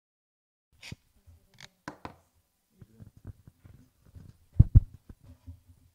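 After a moment of silence, scattered clicks, knocks and rustles of handling noise, with two loud thumps in quick succession about two-thirds of the way through.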